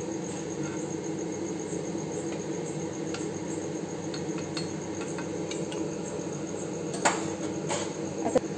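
Khasta deep-frying in hot oil: a steady low bubbling with faint crackles. A slotted steel spoon clinks twice against the pan and steel plate near the end as fried pieces are lifted out, and a cricket chirps steadily in the background.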